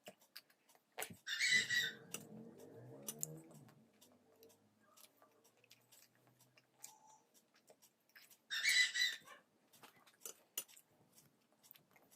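Close-miked eating sounds from chewing a mouthful of poha (flattened rice): many small wet clicks and smacks, with two short louder scraping bursts, one about a second in and one at about eight and a half seconds.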